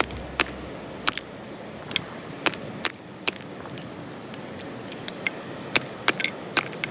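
Wood campfire crackling: sharp, irregular pops, about a dozen, over a steady hiss.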